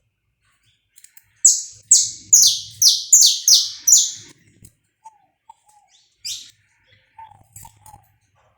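Saffron finch singing: a quick run of about seven loud, sharp notes, each sliding down in pitch. A single similar note follows about two seconds later, with faint lower chirps in between.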